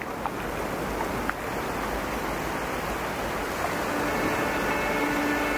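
Ocean surf washing on the shore, a steady rush of wave noise. Music fades in about four seconds in.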